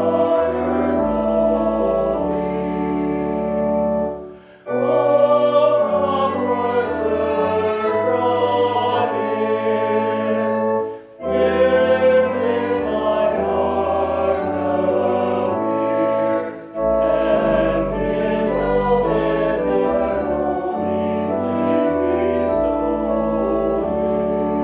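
A hymn sung by a choir with organ accompaniment. Held chords over sustained bass notes, with three short breaths between phrases.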